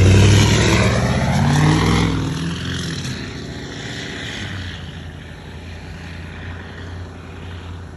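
Ford F-250 Powerstroke diesel pickup accelerating hard, its engine revving up and rising in pitch over the first couple of seconds. It then fades steadily as the truck pulls away into the distance.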